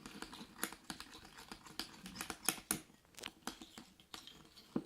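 Freshly made glue-and-borax slime being squeezed and kneaded by hand, giving a quick irregular run of small wet clicks and pops.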